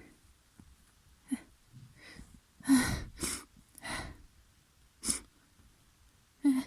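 A person sneezing over and over through a congested, snotty nose. Short, sharp bursts come about a second apart, with the loudest cluster of sneezes around three seconds in.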